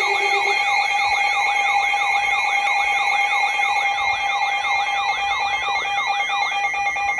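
Layered electronic alert siren tones: a fast, repeating falling wail of about three sweeps a second over several steady held tones. A low pulsing beep stops about half a second in, a warbling beep joins about five seconds in, and the sweeps stop near the end.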